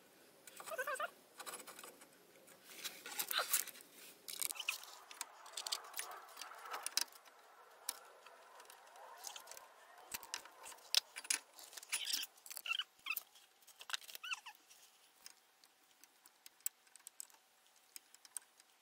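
Light metallic clinks and rattles of hand tools and brake parts being handled, in irregular scattered clusters.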